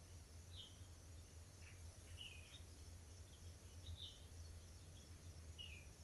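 Faint wild birdsong: short high chirping notes scattered through, about eight of them, over a steady low hum and a faint high hiss.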